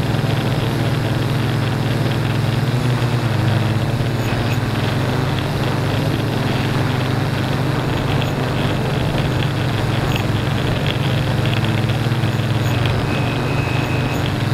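Multirotor drone's motors and propellers running in a steady buzzing hum in flight, shifting slightly in pitch a few seconds in.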